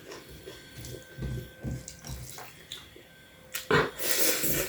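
Close-up eating sounds: soft chewing, then a loud wet slurp starting a little before the end.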